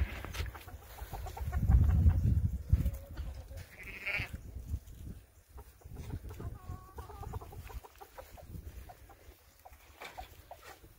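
Chickens clucking around a coop, with one drawn-out wavering animal call about seven seconds in. A low rumble about two seconds in is the loudest sound.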